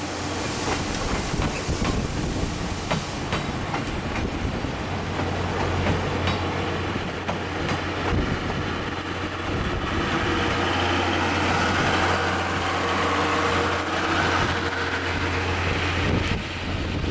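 12-series passenger coaches rolling past on the rails behind a steam locomotive pair, wheels clacking over the rail joints. The noise drops about a second before the end as the last coach goes by.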